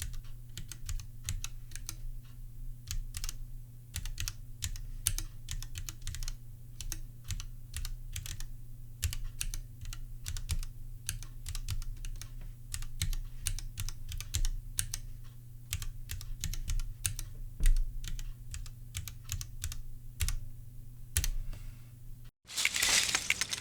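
Continuous typing on a Bastard Charybdis Nano ergonomic mechanical keyboard with Gateron Yellow linear switches: a fast, irregular stream of keystroke clicks. The typing stops about 22 seconds in, and a brief loud burst of noise follows near the end.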